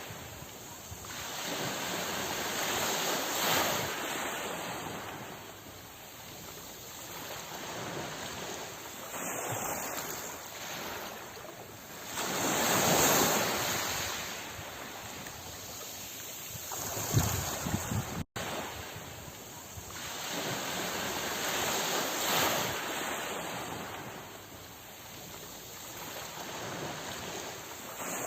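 Sea waves breaking and washing on the shore, the surf swelling and fading every few seconds, with the biggest break about 13 seconds in. The sound cuts out for an instant about 18 seconds in.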